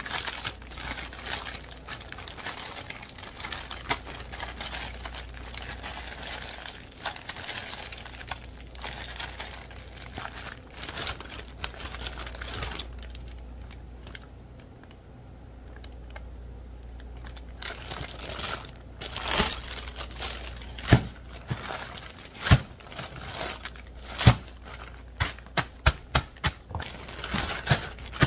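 Plastic zipper storage bag crinkling and rustling as soft shaved ice from a blender is scooped and packed into it by hand. After a quieter stretch, a run of sharp clicks and snaps comes near the end as the bag's zip seal is pressed shut.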